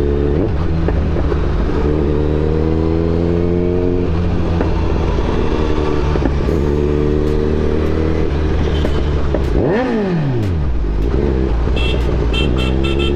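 Kawasaki Z900's inline-four engine running under way, its pitch rising through the gears twice and dropping sharply about ten seconds in. A run of short high beeps comes near the end.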